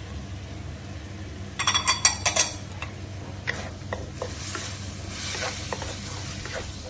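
Wooden spatula stirring and scraping chicken pieces and spices around a metal wok, with a light sizzle. About a second and a half in, a quick run of ringing clinks on the pan, the loudest sound.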